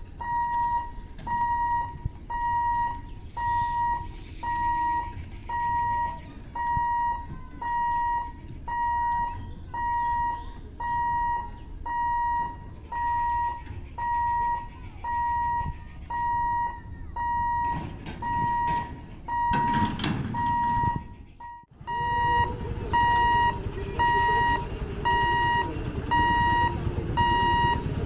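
Level-crossing warning buzzer beeping, one steady high tone repeating about one and a half times a second, the signal that the boom barrier is closing for a train. A burst of rushing noise joins it near the end.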